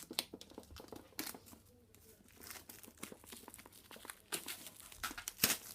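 Product packaging being handled: crinkling and rustling with scattered clicks and taps, the loudest couple about five seconds in.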